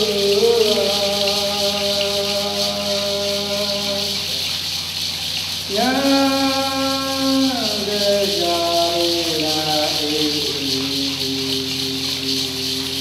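A man's voice singing a Tupi-Guarani chant in long held notes that slide down at their ends; after a pause of about two seconds a higher phrase comes in and steps down in pitch. A shaken rattle keeps up a steady hiss underneath.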